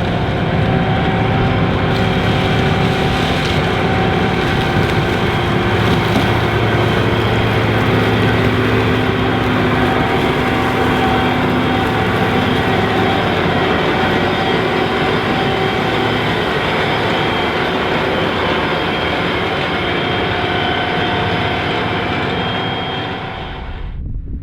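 Challenger 560C combine running steadily while harvesting corn: a dense, continuous mechanical drone from the engine and harvesting machinery, with several steady whining tones through it. Near the end the sound abruptly drops and turns duller.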